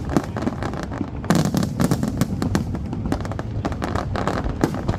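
Aerial fireworks going off in rapid succession: a dense run of overlapping bangs and crackling, with a louder burst about a second in.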